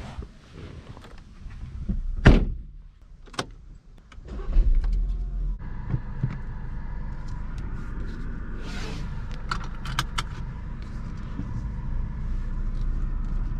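A car door shuts with a loud knock about two seconds in, followed by a click a second later. About four and a half seconds in, the Volkswagen Golf 7's 1.4 TSI turbocharged four-cylinder petrol engine starts and settles into a steady idle, with a few light clicks from the cabin.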